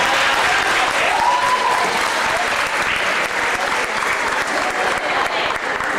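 Audience applauding steadily, a dense patter of many hands clapping, with a voice rising briefly above it about a second in.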